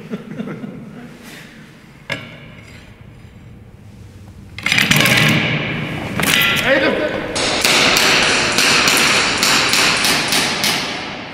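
A knock on the table, then from about the middle a loud scramble of players leaping up from the table and chairs, with raised voices and a quick run of sharp knocks and clatters, about three or four a second, near the end.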